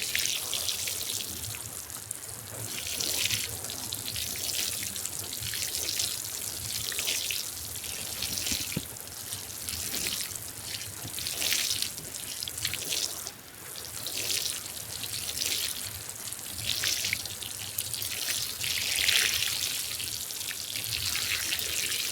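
Running, trickling water with drips, swelling and fading every second or two.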